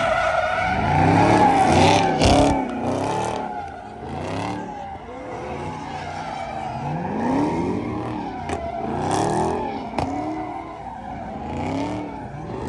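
Car engine revved up and down over and over while the tyres squeal and skid, as in a burnout. The squeal is loudest in the first couple of seconds, and the revving carries on after it.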